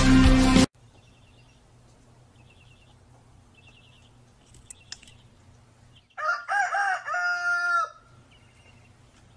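A rooster crowing once, close and loud, about six seconds in: two short rising-and-falling notes, then a longer held note. Faint high chirps come before it.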